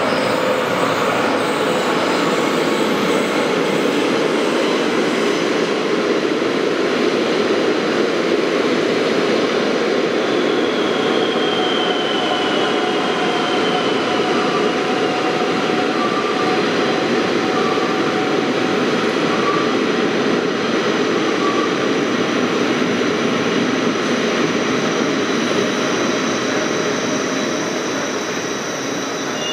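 NS yellow-and-blue double-deck electric train running into an underground station platform, a steady rumble and hiss echoing off the hard walls. A faint falling whine comes about a third of the way in, with a few brief squeaks after it, and the sound eases a little near the end.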